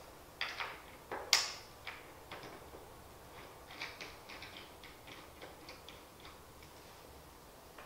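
Hand-tightening a black knob bolt into the aluminium frame of a shower/commode chair: a few sharp knocks in the first second and a half, the loudest about a second in, then a run of small, light clicks and ticks as the bolt is turned.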